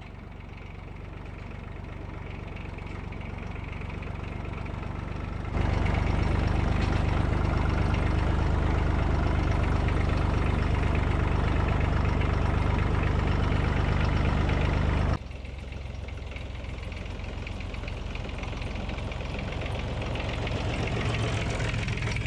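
Massey Ferguson 35 diesel tractor engine running steadily as the tractor drives through snow. It grows steadily louder over the first five seconds, is suddenly much louder and closer for about ten seconds, then drops back and builds again.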